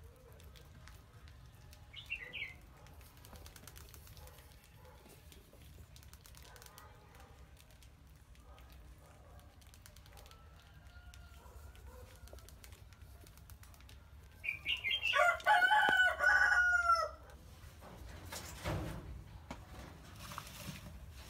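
A rooster crows once, loud, about two thirds of the way in, in a string of arching pitched notes lasting a couple of seconds. Around it there is only faint scattered ticking and rustling, with a brief high chirp early on.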